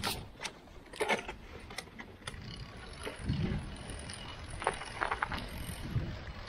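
Steintrikes Wild One recumbent trike being pedalled along a snowy road, with irregular clicks and knocks from the moving trike over a low, uneven rumble.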